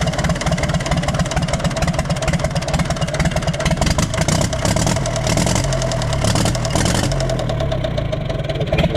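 Universal 550 tractor's diesel engine running steadily at idle with a knocking noise from inside the engine that remains after work on the injectors and their timing; the mechanic thinks a compression test is needed and the piston may be at fault.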